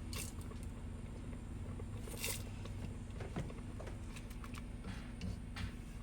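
A steady low hum with a few faint scrapes and taps of a utensil in a pot of cooking oatmeal, one brief scrape about two seconds in.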